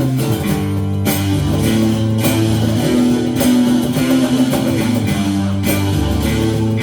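Live band playing an instrumental passage: guitars over a bass line, with a steady beat of sharp hits about once a second.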